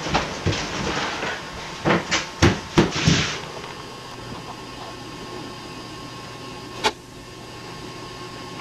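A quick run of sharp knocks and thumps over the first three seconds, then a steady low hum broken by a single click near the end.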